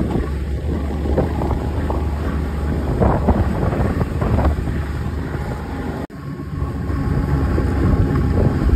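Snowmobile engine running steadily as the sled rides along a snowy trail, with wind buffeting the microphone. The sound drops out for an instant about six seconds in.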